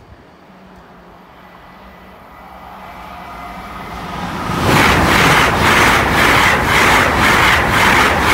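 A train approaching and passing a level crossing at high speed: a rising rush of wheel and rail noise that turns loud about halfway through, with a regular beat about twice a second as the carriages go by.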